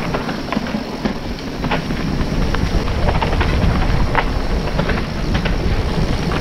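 Mountain bike riding over a rough dirt trail: tyres on loose ground and sharp, irregular clicks and rattles from the bike, over a steady low wind rumble on the helmet camera's microphone.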